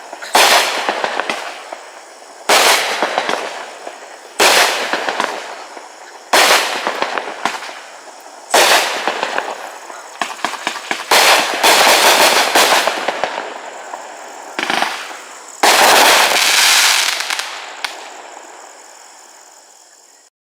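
500-gram consumer fireworks cake firing its shots: a sharp report about every two seconds, each trailing off in a crackling tail. The shots come thicker and faster toward the middle, then a final long burst fades out to nothing just before the end.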